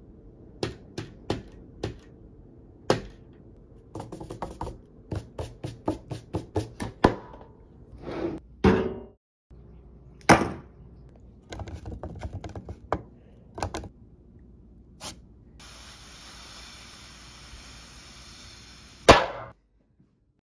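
Hand-made Foley effects for a cartoon: a run of light taps and knocks, some in quick clusters, with a few louder swishes among them. Near the end a steady hiss lasts about three seconds and ends in one sharp hit, the loudest sound.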